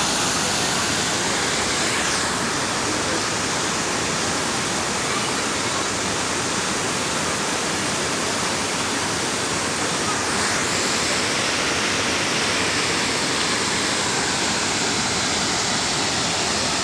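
Düden Waterfall's falling water, a loud, steady, unbroken rush.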